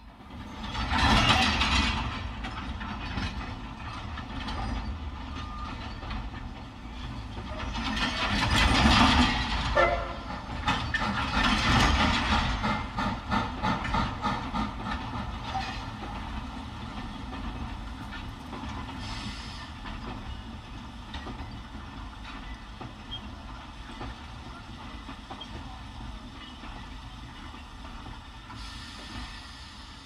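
Steam locomotive recording played through a Toyota Prius's stock factory speakers from an entry-level Kenwood car-navigation head unit, heard inside the parked car's cabin with the engine off. Loud surges come about a second in, around eight seconds and around twelve seconds, then a steadier running sound gradually fades.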